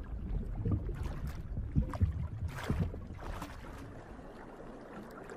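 Water ambience: soft irregular swishing and sloshing over a low rumble, fading somewhat toward the end.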